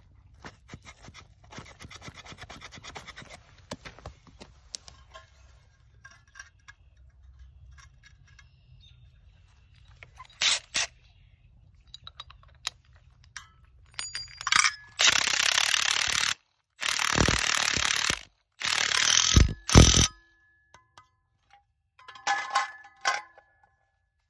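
Makita impact driver running in several short bursts, each a second or so long with brief pauses between, driving a Tapcon screw anchor into a concrete pier through a steel post base bracket. Before that, light scraping and clinking as the metal bracket is handled on the concrete.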